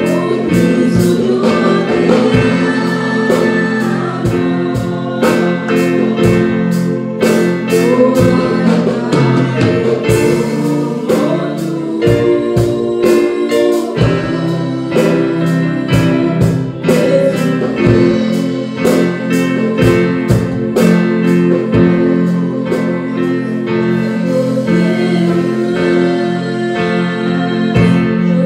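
Live worship music: a woman singing through a microphone and PA, with an electric guitar and a steady drumbeat behind her.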